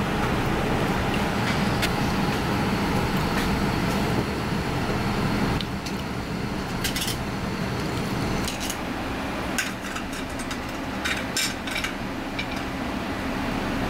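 Tap water running into a stainless steel bowl of rinsed clam meat, a steady rush that drops away about five and a half seconds in. A few light clicks and knocks of kitchen handling follow.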